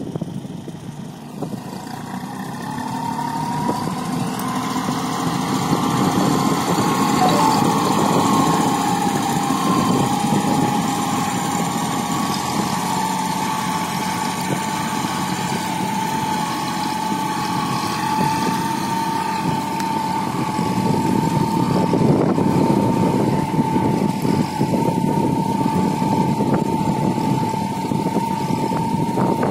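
Kubota B2741 mini tractor's three-cylinder diesel engine running steadily under load while pulling a seed drill, with a steady high whine over the engine note. It grows louder over the first few seconds, then holds even.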